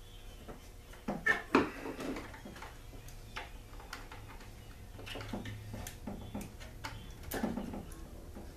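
Scattered clicks, ticks and light knocks of hands and a small tool working on a small two-stroke generator's side panel, unfastening it. There is a louder clatter about a second in and another near the end.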